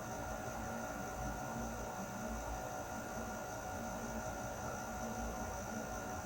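Air conditioner running steadily: an even airflow hiss with a few faint steady tones over a low rumble.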